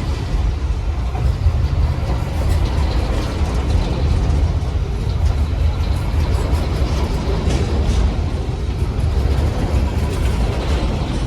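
GE ES43BBi diesel-electric locomotive working hard at high throttle up a grade: a steady, deep engine rumble that holds without letting up.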